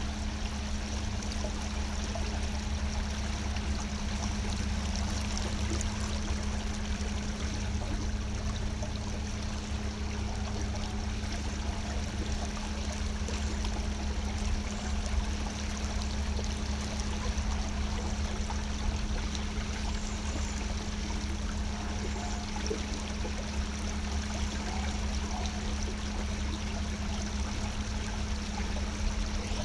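A small boat moving slowly along a river: a steady low drone with one constant tone under an even rush of water.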